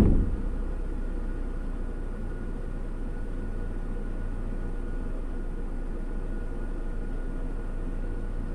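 Steady drone of a vehicle idling with its air conditioning running, heard from inside the cabin: a deep hum with faint steady whines above it.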